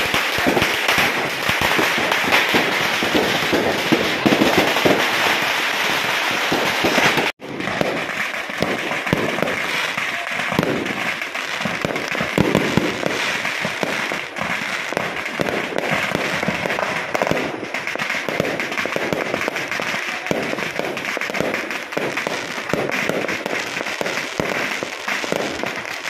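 Firecrackers and fireworks going off in a dense, continuous crackle of rapid pops and bangs, with a sudden gap for an instant about seven seconds in.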